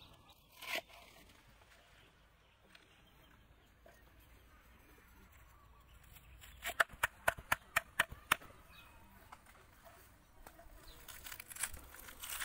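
Kitchen knife chopping Napa cabbage on a wooden chopping board: a single chop just after the start, then a quick run of about ten chops around seven seconds in.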